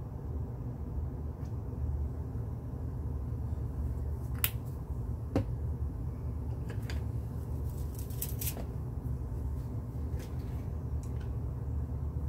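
Steady low rumble with a scattering of small, sharp clicks and taps from handling plastic acrylic paint bottles on a table while painting a canvas.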